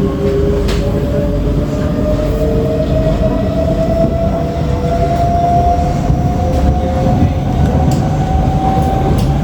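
Inside a SMRT C151B metro car: the traction motors whine, rising slowly and steadily in pitch as the train gathers speed, over a steady rumble of the wheels on the track.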